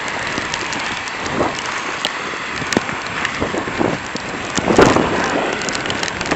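Steady wind hiss on the microphone with irregular soft crunches of footsteps through deep snow; the loudest crunch comes about five seconds in.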